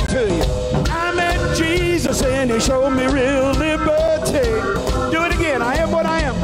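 Live blues band playing: a lead melody line with bent, wavering notes over electric bass and drums.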